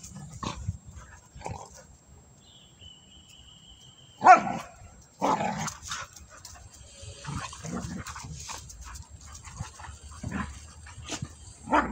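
A dog barking in short, separate bursts, the loudest about four seconds in, another a second later and one more near the end, with quieter whines and yips between.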